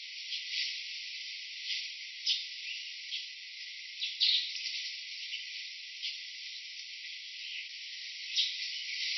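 Steady high-pitched insect chorus, with short sharp chirping calls scattered through it every second or so.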